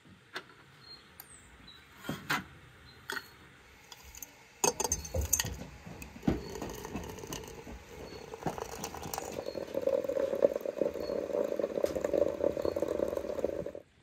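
A few light clinks of dried flowers and a hand against a glass teapot, then hot water running from a samovar tap into the glass teapot over dried herbal tea flowers. The pour grows louder as the pot fills and cuts off suddenly near the end.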